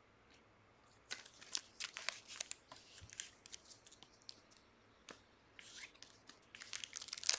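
Plastic crinkling and rustling in short, irregular crackles as trading-card packs and sleeves are handled. It comes about a second in, and again from about five seconds on, growing busier near the end.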